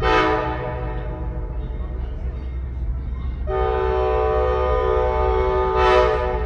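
Amtrak Silver Meteor's locomotive air horn sounding two blasts, a short one and then a longer one about three seconds later, over the steady low rumble of the train.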